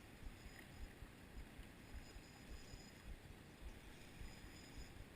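Near silence: faint outdoor background with soft, irregular low bumps.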